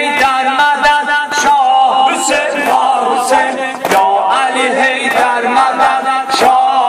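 Male voices chanting a Shia mourning lament for Imam Huseyn over a microphone, joined by a crowd of men, cut by a steady beat of sharp strokes of hands beating chests.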